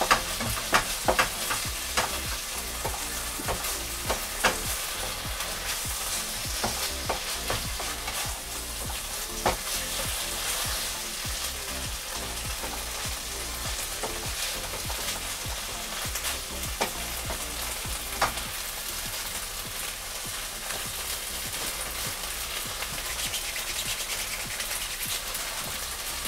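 Curry sauce sizzling in a frying pan on a gas hob as it cooks down after stock and water are added, with a spoon scraping and tapping against the pan as it is stirred. The taps are most frequent in the first half.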